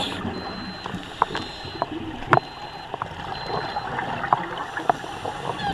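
Underwater sound around a scuba diver: regulator exhaust bubbles gurgling over a steady wash of noise, with scattered sharp clicks and crackles.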